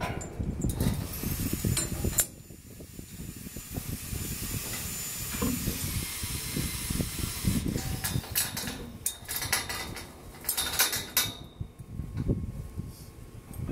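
Steel ring spanner clinking and knocking against the nuts and bolts of M24 high-strength friction-grip bolts during snug tightening, with a cluster of metal clinks about eight to eleven seconds in. A steady high hiss runs through the first half.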